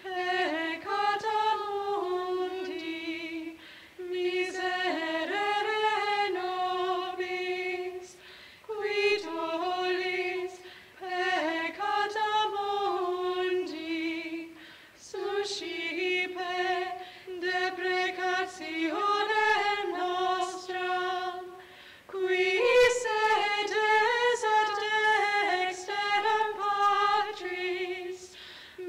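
Unaccompanied voices singing a liturgical chant in unison, one melodic line in short phrases with brief pauses for breath between them.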